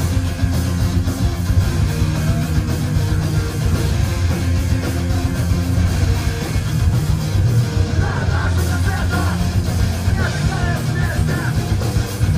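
Loud punk rock music with distorted electric guitars and drums. Vocals come in about eight seconds in.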